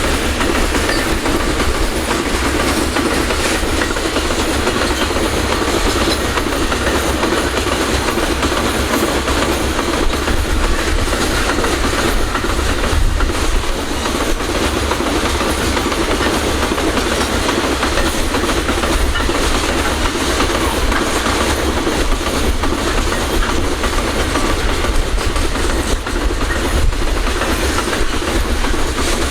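Freight train rolling past, a steady clatter of wheels over the rails with no let-up.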